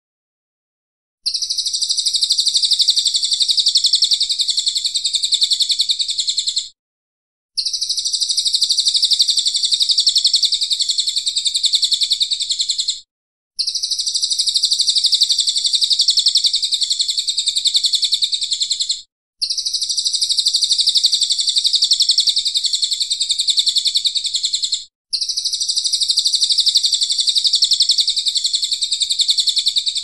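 Brown cililin (crested jay) giving harsh, dense rattling calls. They come in five long bursts of about five seconds each, with short silent breaks between them.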